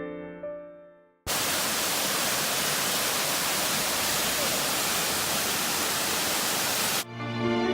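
Background music fades away. About a second in, a steady, loud rush of waterfall water cuts in abruptly; it cuts off just as abruptly near the end, when the music comes back.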